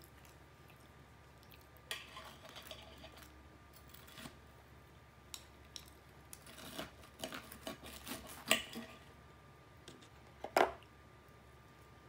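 Knife and fork clinking and scraping against a plate while cutting fried chicken, in scattered sharp taps and short scrapes, with two louder clinks in the second half.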